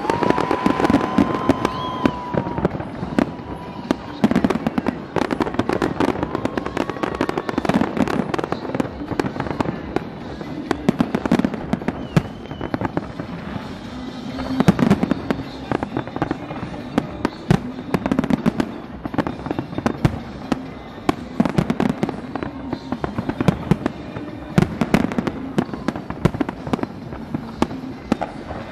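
A fireworks display: shells bursting in quick, irregular bangs and crackles throughout, with people's voices and music mixed in underneath.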